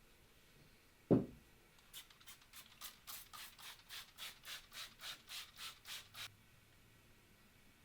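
A single low thump, then scrubbing: quick back-and-forth rubbing strokes on a surface, about four a second for some four seconds, stopping abruptly.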